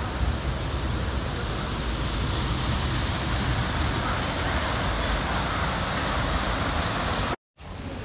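Steady rush of stream water over rocks and a small waterfall cascade, an even hiss, which cuts off suddenly near the end.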